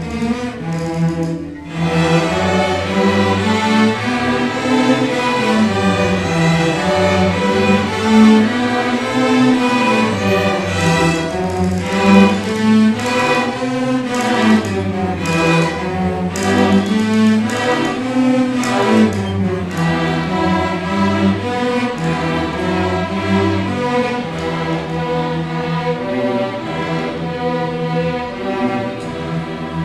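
Seventh-grade string orchestra of violins and cellos playing a piece together, the low strings carrying a line that winds up and down. The music breaks off briefly about a second and a half in, then carries on.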